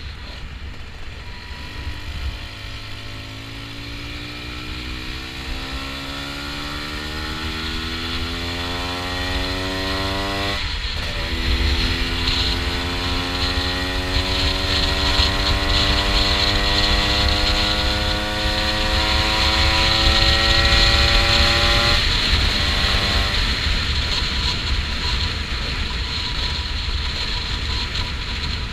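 Honda NSR125's 125cc two-stroke single revving up under acceleration, shifting up about ten seconds in and pulling up through the next gear. About two-thirds of the way through the throttle closes and the engine note fades, leaving wind rush on the microphone.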